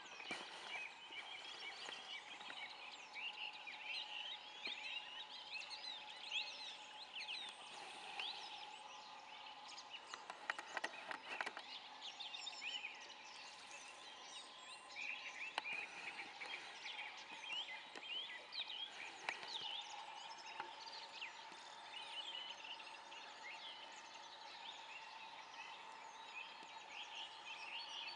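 Outdoor chorus of many birds chirping and singing, over a steady lower drone of more distant calls, with a few sharp clicks about ten to twelve seconds in.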